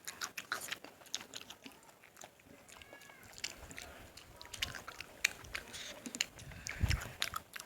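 Close-miked eating sounds: a person chewing and smacking on a mouthful of fish curry and vegetables, with many short irregular wet clicks. There is a dull low knock near the end.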